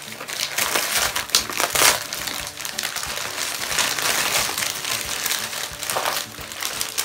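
Gift wrapping paper being torn open and crumpled by hand: continuous rustling and crinkling with sharp rips, louder about two seconds in and again near the end.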